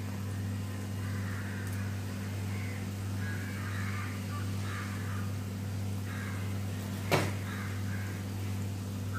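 Hot oil sizzling as a batch of jaggery seedai deep-fries in a cast iron kadai, over a steady low hum. One sharp click about seven seconds in.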